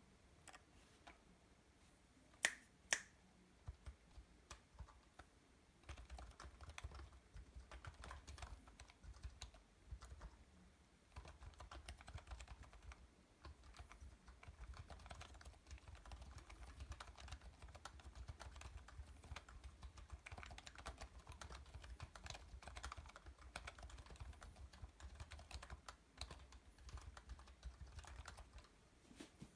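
Typing on a 3D-printed split concave keyboard with Niz sliders over rubber DES domes: a quiet, low-pitched, irregular patter of keystrokes. Two sharp finger snaps a few seconds in are much louder than the typing.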